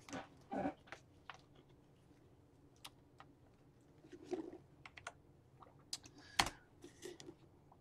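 Computer keyboard keys tapped now and then, a scatter of short clicks with one sharper keystroke about six and a half seconds in.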